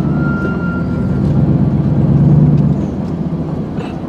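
Truck engine running as the truck moves, with a low rumble that swells about two seconds in and eases off a second later. A brief thin high whine sounds near the start.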